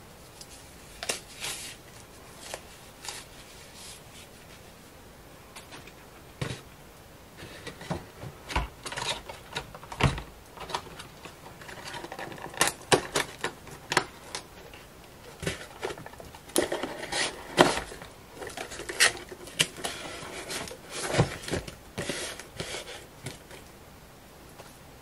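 Irregular clicks, taps and rustles of objects being handled at close range: quick runs of sharp clicks with short rustling scrapes between them, busiest in the second half.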